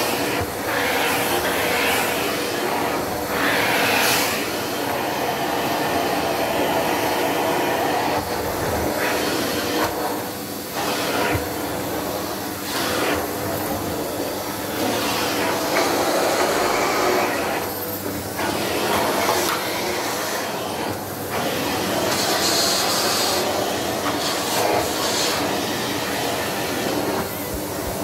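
Canister vacuum cleaner running, its floor head pushed back and forth over a rug, the noise swelling and easing with each stroke.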